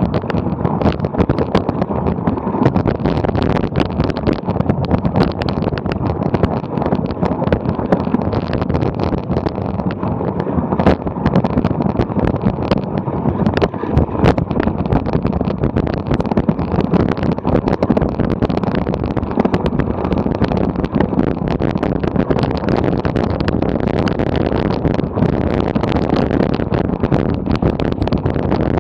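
Mountain bike coasting slowly down a steep, rocky, snowy and muddy trail: tyres crunching over stones and snow and the bike rattling, with many small knocks, heard close up through an action camera's microphone.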